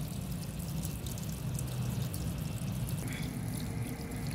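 Water pouring in a steady stream from a hole low in a plastic bucket and splashing onto stone, as a fish pond is drained for a water change.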